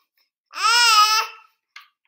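Baby's high-pitched babbling: one drawn-out call about a second long that rises and then falls in pitch.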